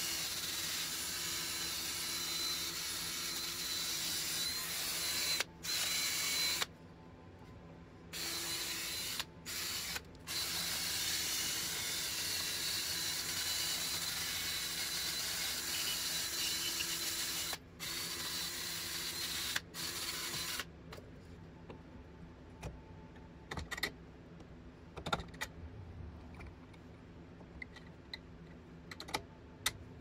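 Cordless drill spinning a wire cup brush against a rusty steel wheel hub, scouring the rust off with a steady harsh whirring grind. It runs in long stretches with a few brief stops and ends about two-thirds of the way through. After that come only scattered clicks and knocks of tools and parts being handled.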